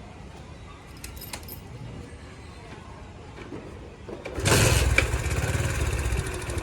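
A Bajaj Platina motorcycle's single-cylinder four-stroke engine, freshly repaired, starting about four and a half seconds in and then idling with a fast, even beat. Before it comes a short run of light clicks.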